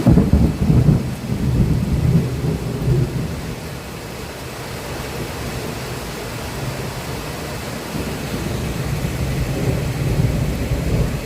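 Thunder rumbling over heavy rain. A deep rumble breaks in suddenly, is loudest in the first three seconds, fades, and builds again near the end, all under a steady hiss of rain.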